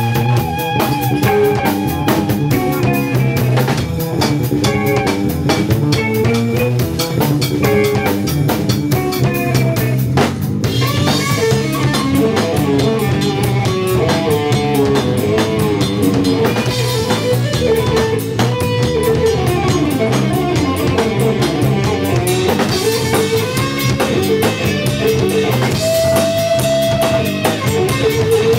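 Live instrumental jazz-metal fusion band playing: a lead electric guitar over a busy drum kit with kick drum and rimshots. The guitar holds sustained notes near the start, then plays running melodic lines from about ten seconds in.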